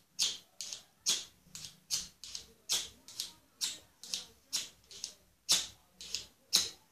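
Steel scraper drawn repeatedly along a ferrocerium fire-steel rod: short scraping strokes about two a second, alternating louder and softer.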